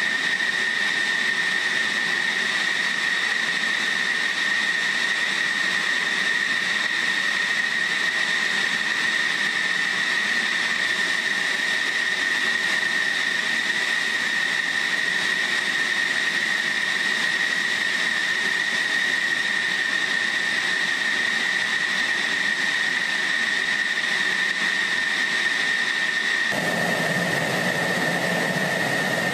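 F-16 fighter jet's engine running steadily on the ground: a high, steady whine over a rushing noise. Near the end the sound fills out with more low rumble.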